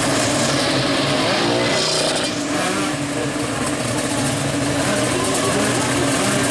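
Two-stroke drag-race motorcycle engines running loudly, with one rev rising and falling in pitch about two seconds in.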